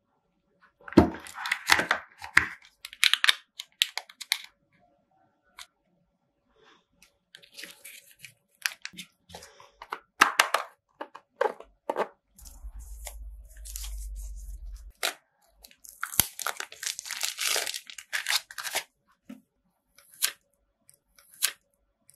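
Cardboard phone-box packaging and plastic wrapping being handled: irregular rustling, crinkling and tearing with small knocks, in clusters separated by quiet gaps. A low rumble lasts about two seconds midway.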